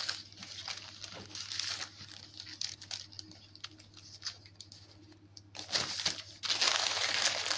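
Paper sandwich wrapper rustling and crinkling as a tortilla wrap is handled and folded up in it, faint and sparse at first, then louder and continuous from about two-thirds of the way through.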